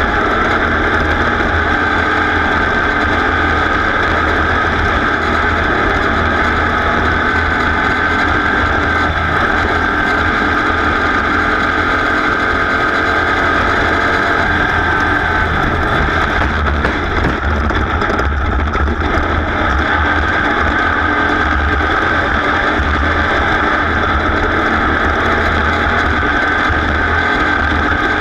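A race vehicle's engine running at a steady drone, with no rise or fall in revs.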